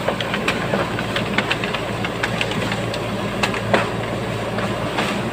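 Backhoe loader's diesel engine running steadily, with frequent short, sharp clanks and knocks over it.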